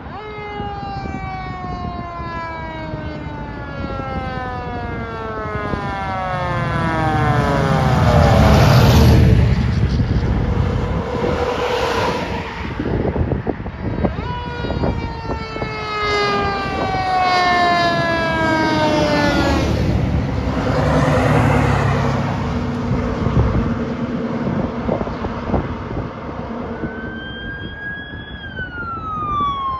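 Fire engines passing on an emergency run with sirens sounding. A siren falls slowly in pitch twice, each time over several seconds, while heavy diesel engine rumble swells loudest as the trucks go by. A quicker rising and falling siren starts near the end.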